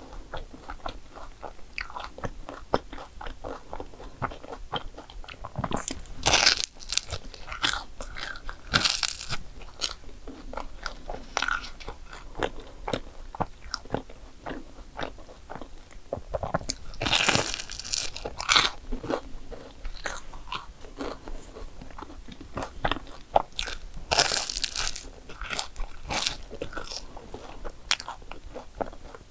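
Eating a chocolate whipped-cream croffle: crunching bites into the croissant waffle, the loudest about six, nine, seventeen and twenty-four seconds in, with steady chewing in between.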